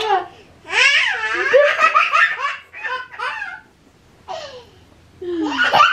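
A baby laughing in several high-pitched bursts, the longest lasting nearly two seconds, then shorter ones with pauses between.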